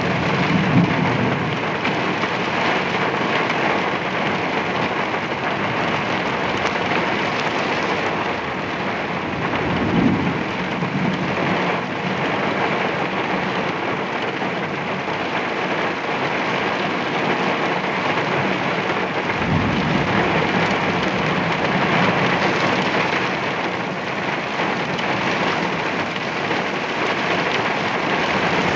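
Heavy thunderstorm rain pouring down steadily, with low rumbles of thunder, one about ten seconds in and a longer one starting a little before the twenty-second mark.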